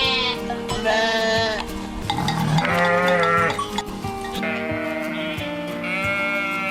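Sheep bleating, about five quavering bleats roughly a second apart, over steady background music.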